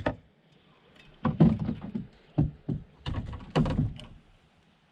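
A freshly landed carp flopping in the bottom of a canoe: a series of irregular dull thumps and knocks against the hull.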